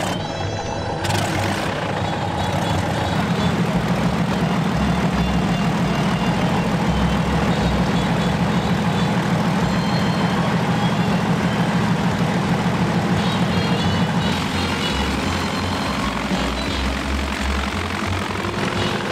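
Fairchild PT-19's Ranger inverted inline six-cylinder engine running on the ground with the propeller turning. The engine note strengthens a few seconds in, holds steady, then eases back about fourteen seconds in.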